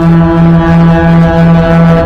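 Locomotive air horn sounding one long, loud, steady blast.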